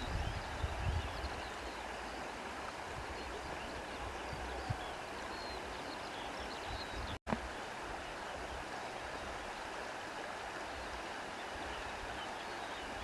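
Stream water flowing steadily, a continuous even rush. The sound cuts out for an instant about seven seconds in.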